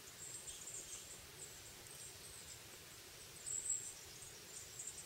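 Small forest songbirds giving faint, very high-pitched thin chirps and trills that come and go, loudest about three and a half seconds in.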